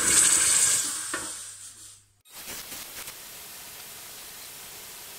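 Hot forged steel bar quenched in a bucket of water: a loud sizzling hiss that fades away over about two seconds. It breaks off suddenly and a steady faint background hiss follows.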